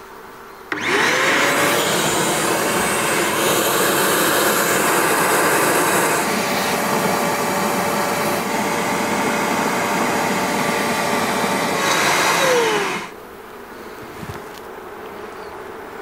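Buster wet-and-dry canister vacuum, used as a bee vacuum, switched on about a second in with a rising whine and running steadily as it sucks bees off the comb through its corrugated hose. Near the end it is switched off and winds down with a falling whine, leaving the fainter buzz of honey bees.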